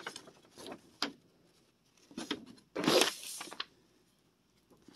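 Paper instruction leaflets rustling and crackling as they are handled and turned, in three short bursts.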